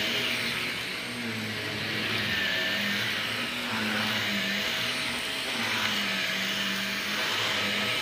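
Stick vacuum with a motorized brush head running on carpet, its pitch rising and falling as it is pushed back and forth.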